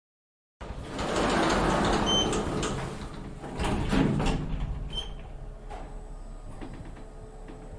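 Elevator doors sliding, starting about half a second in and rising twice before fading, with two short high beeps.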